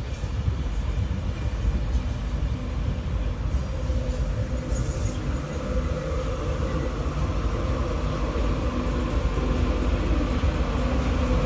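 Train running along the track: a steady low rumble with a constant mechanical hum over it.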